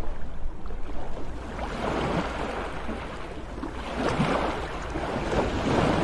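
Sea waves surging and washing in, rising and falling with a new surge every couple of seconds.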